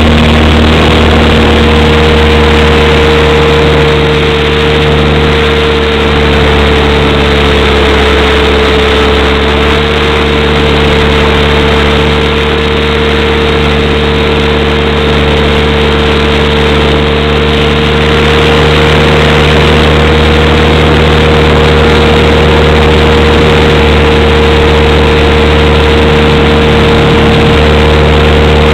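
Electric motors and propellers of a small RC aircraft heard through its onboard camera's microphone: a loud, steady whine that drifts slightly in pitch, over a constant rushing noise.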